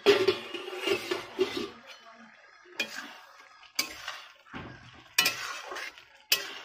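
A stainless steel lid comes off an iron kadai with a clang that rings for about a second and a half. Then a metal spatula scrapes and knocks against the kadai about once a second as it stirs the thick dal.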